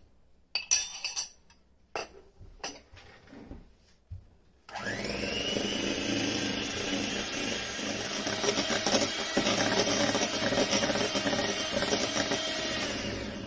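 A few light knocks, then a handheld electric mixer starts about a third of the way in, its motor whining up to speed, and runs steadily as its beaters whisk egg yolks with sugar in a glass bowl. It cuts off right at the end.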